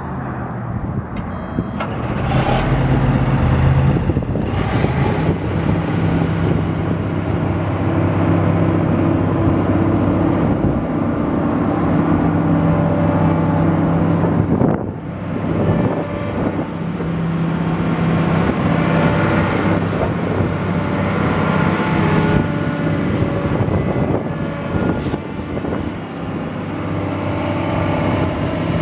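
Komatsu PC400LC-6 excavator's six-cylinder diesel engine running steadily, its pitch shifting a couple of seconds in and dipping briefly about halfway through.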